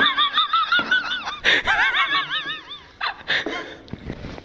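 High-pitched giggling laughter in quick bouncing pitch, two long runs of it followed by a few short laughs that fade near the end.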